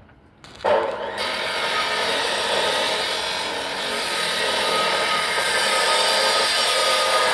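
Electric arc welding on structural steel: the arc strikes about half a second in and then crackles and hisses steadily.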